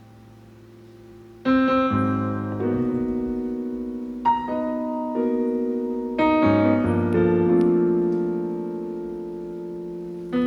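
Piano playing slow chords alone, each left to ring and fade: a held chord dies away, then new chords are struck about a second and a half in, again a few seconds later and once more past the middle.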